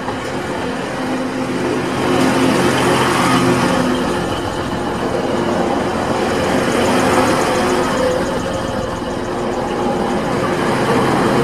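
TransPennine Express diesel multiple unit passing close by, its underfloor engine droning steadily under the rush of the wheels on the rails, louder as the carriages go past. A light rapid ticking comes in briefly about two-thirds of the way through.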